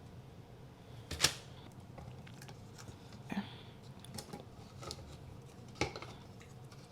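Scattered light clicks and taps of kitchen items and food containers being handled, the sharpest about a second in, with others later.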